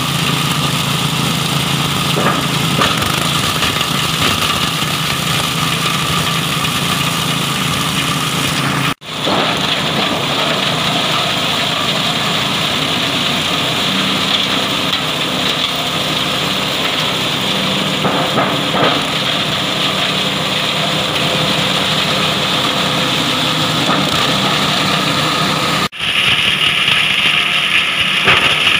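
5.5 HP petrol engine running steadily, driving a mini plastic shredder as it chops plastic oil bottles into flakes.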